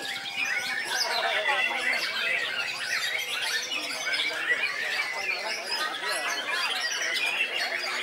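Caged songbirds, among them a white-rumped shama, singing at once: a dense, unbroken tangle of overlapping whistles, trills and chatter.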